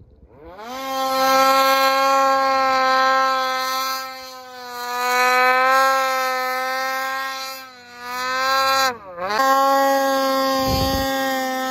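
2020 Ski-Doo Summit 850's two-stroke twin engine revving up hard in the first second and holding high, steady revs under full throttle, the clutch kit adjusted for the rider's target RPM. The revs sag and come back twice, drop and climb sharply about nine seconds in, and a short low thump comes near the end.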